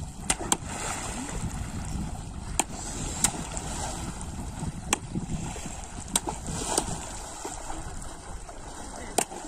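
Shallow floodwater sloshing and swishing as men wade through it, with about eight sharp, irregular slaps from bamboo poles striking the water's surface.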